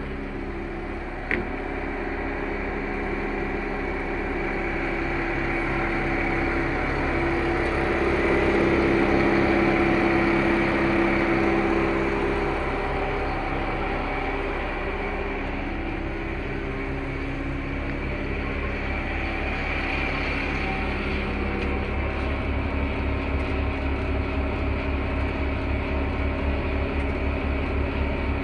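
Service-truck hydraulic air compressor running, with a steady low drone from the truck's Caterpillar C7 diesel, which drives the hydraulics. There is a single click about a second in, and the sound swells in loudness between about 7 and 12 seconds before it settles again.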